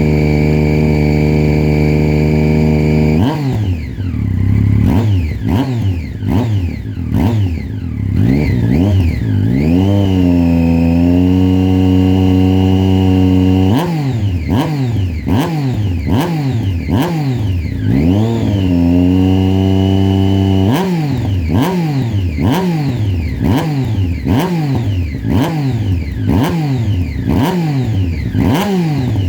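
Triumph Street Triple 675 R's inline three-cylinder engine through an HP Corse aftermarket exhaust, held at a steady speed at first, then revved in quick throttle blips about once a second. Twice the revs are held steady for a few seconds between the runs of blips.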